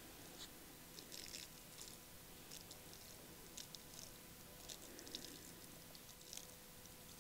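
Near silence, with faint scattered small clicks and ticks.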